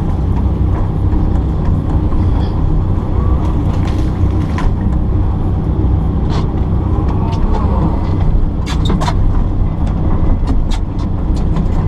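Kobelco 15-ton excavator's diesel engine running steadily under load. Scattered sharp cracks and clicks come through it, heaviest in the second half.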